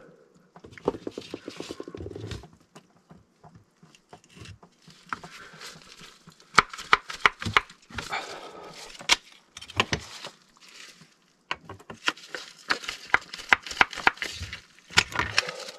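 Hand tools working a brass hose-bib fitting on a plastic water line: a quick run of small clicks about a second in, then scattered sharp metallic clicks and knocks as a wrench is fitted and turned on it.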